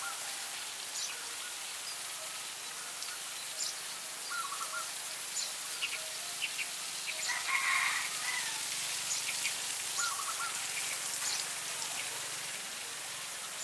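Water hissing steadily from a garden hose spray nozzle onto mulch and plants, with small birds chirping every few seconds.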